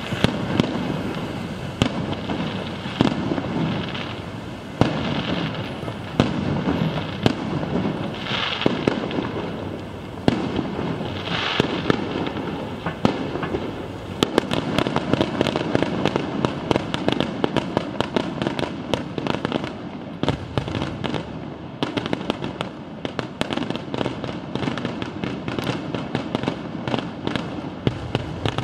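Fireworks display: aerial shells bursting with bangs over a steady rumbling wash, turning about halfway through into a thick run of rapid crackling pops.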